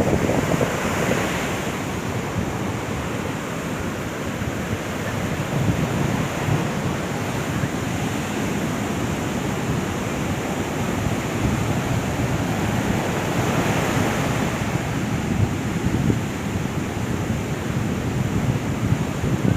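Sea surf washing on a beach, a steady rush that swells twice, about a second in and again about two-thirds of the way through, with wind buffeting the microphone.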